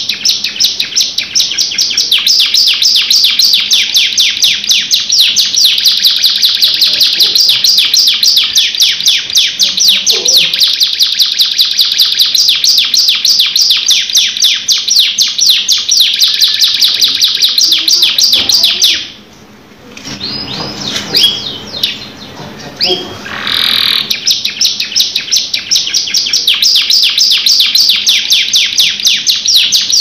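Domestic canary singing a long rolling trill of rapid, high repeated notes. About two-thirds through it breaks off for a second, gives a few softer notes, then the fast roll starts again.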